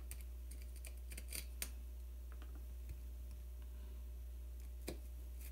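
Scattered sharp little clicks and ticks of a small screwdriver and plastic thermometer parts being handled while screws are taken out of a circuit board, the loudest about a second and a half in and another near the end, over a steady low hum.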